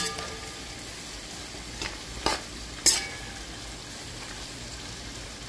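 Chopped bhaji greens sizzling in an aluminium pot while a metal spoon stirs them, with three short knocks and scrapes of the spoon against the pot about two to three seconds in.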